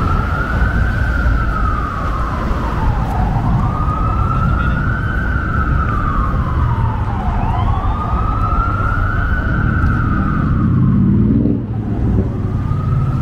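Emergency vehicle siren wailing, sweeping slowly up and down in pitch about every four seconds, over a steady rumble of city traffic. A short rising tone cuts in near the end.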